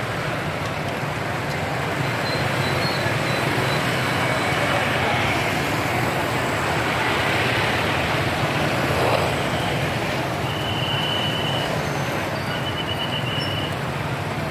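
Dense motorbike traffic running past on a city road, a steady mix of many small engines. One passes close about nine seconds in. Near the end a high tone sounds twice, the second time as rapid pulses.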